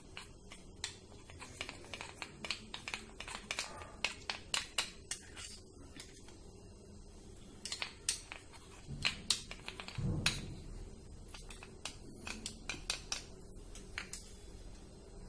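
Steel spoon clicking and scraping against a small plastic bowl in quick, irregular runs while stirring a thin flour-and-water paste. A dull thump about ten seconds in.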